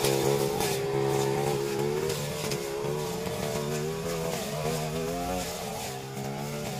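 Backpack brush cutter's small petrol engine running hard while slashing weeds, its pitch wavering up and down as the throttle and the load on the cutting head change. It grows slowly fainter as the machine moves away.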